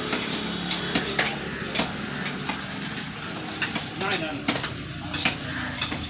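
A knife scraping and chopping as fish are scaled and cut, in a run of sharp, irregular clicks and knocks.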